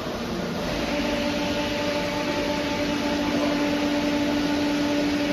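Electrostatic oil mist collector's fan motor running with a steady whirring noise; a steady hum comes in about a second in and holds.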